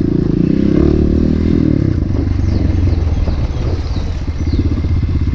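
Motorcycle engine running while riding, steady and loud, easing off a little about two seconds in.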